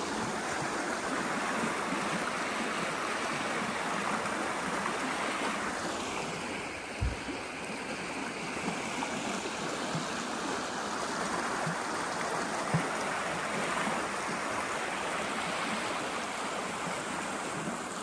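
Steady rush of a waterfall's falling water, with two brief low thumps about seven and thirteen seconds in.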